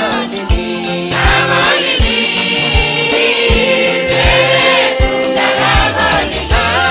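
Church choir singing a gospel song in parts over a backing track, with a bass line and a steady drum beat about two a second.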